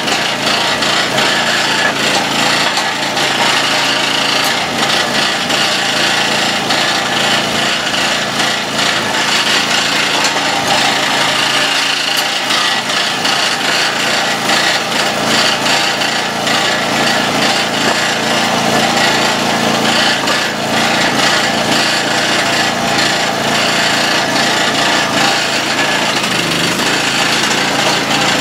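Engine of a Dirty Hands 25-ton hydraulic log splitter running steadily at constant speed.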